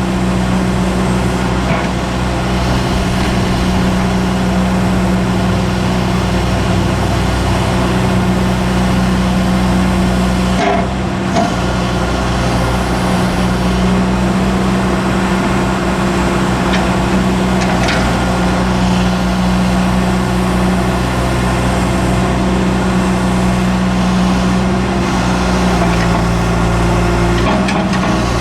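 John Deere 310E backhoe loader's turbocharged diesel engine running steadily, with a few brief clunks, one about eleven seconds in.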